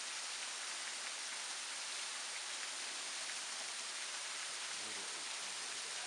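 A thin waterfall splashing down a rock face: a steady hiss of falling water with a patter of drops.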